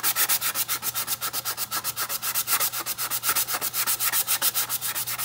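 Quick back-and-forth hand sanding of a coated ceramic mug with 400-grit sandpaper on a sanding block, a steady rasping scrape at about eight strokes a second. It is a light scuff-sanding of the cured clear coat, which leaves it dull before the next coat of Brite Tone.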